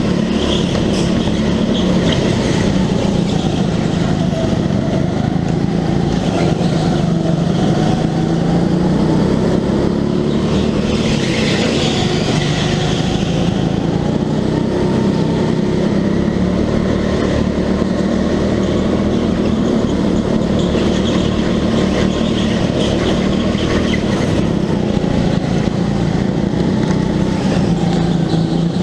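Racing kart engine running hard, its pitch rising and falling every few seconds as it accelerates and lifts off. Near the middle there is a brief burst of hiss.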